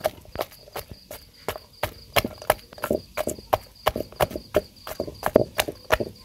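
Wooden pestle pounding halved green mangoes and pounded shrimp in a mortar for green-mango som tam: a steady run of dull knocks, about three a second.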